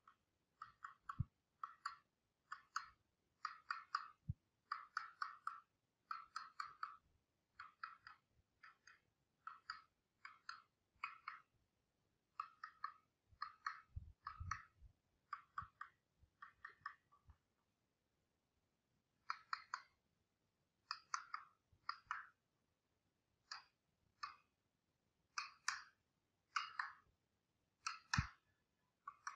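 A mallet tapping a carving chisel into hardwood, in quick runs of light, sharp taps broken by short pauses, with a pause of about two seconds midway and a few low thuds.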